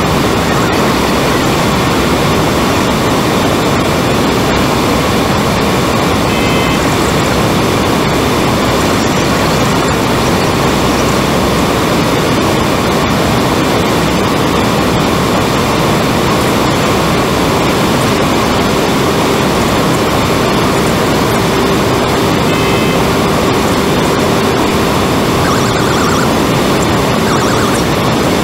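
Steady, loud drone of an ATR 72-500's twin turboprop engines and propellers, with airflow noise, heard from inside the cockpit during the descent. Two brief high beeps sound twice over it.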